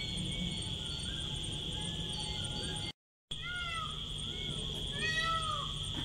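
Cheetah calling with short meow-like chirps that rise and fall in pitch, louder and more frequent in the second half, over a steady high insect drone. The sound cuts out completely for a moment about three seconds in.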